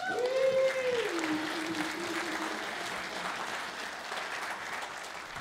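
Congregation applauding, with one drawn-out vocal cheer over the first couple of seconds; the clapping fades out near the end.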